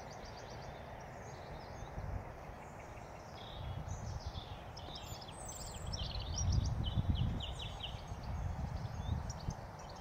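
Wild songbirds singing, a steady run of quick high chirps and trills, over a low rumble that swells about two-thirds of the way through.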